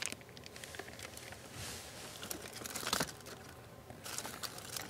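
Plastic toy packaging being handled: scattered light clicks and taps with a short crinkle about one and a half seconds in, and a sharper click about three seconds in.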